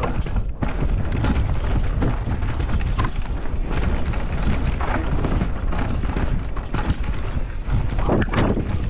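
Electric mountain bike rolling fast down a dirt singletrack: a steady rumble of wind on the microphone and tyres on the trail, broken by a few sharp knocks as the wheels hit roots and bumps, the clearest about three seconds in and near the end.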